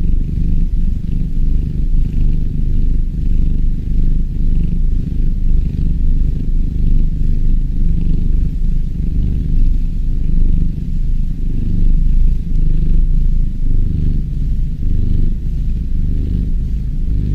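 A kitten purring steadily: a low, continuous rumble that swells and eases in waves.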